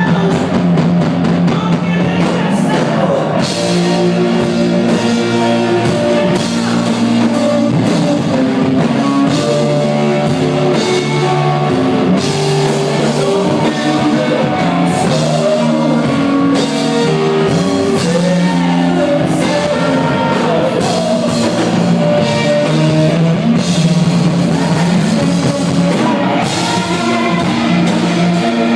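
Live rock band playing an instrumental passage, with drum kit and electric guitar.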